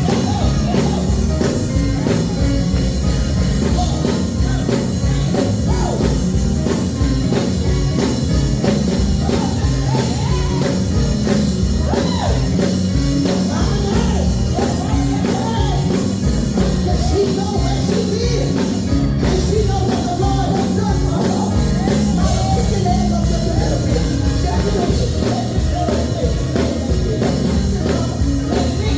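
Gospel music played by a band with drums, with a voice singing over it.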